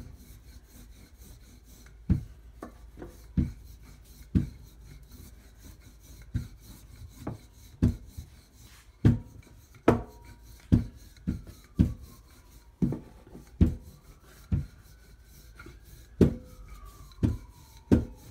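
Wooden rolling pin rolled back and forth over a thin sheet of stiff matri dough on a countertop: a rubbing roll with a knock at each stroke, about one a second at an uneven pace.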